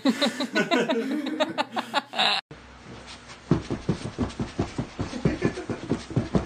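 Vocalising for the first two seconds or so. After a sudden cut, a man laughs heartily in a steady run of ha-ha pulses, about four a second.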